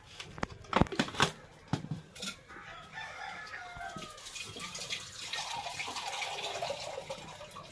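A domestic chicken calling for several seconds, a drawn-out crowing call, after a few sharp clicks and knocks in the first second or so.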